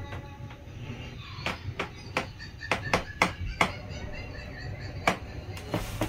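Dishes and cutlery clinking: a string of sharp clicks and knocks, bunched about two to four seconds in with another near the end, over a low steady hum.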